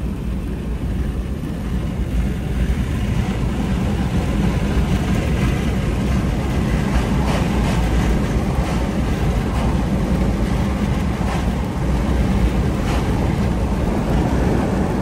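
Steady tyre and engine noise of a car driving on a wet highway, heard from inside the cabin; it grows slightly louder a few seconds in.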